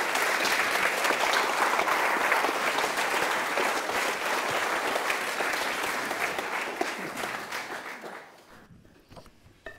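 Audience applauding, the clapping thinning out and dying away about eight seconds in.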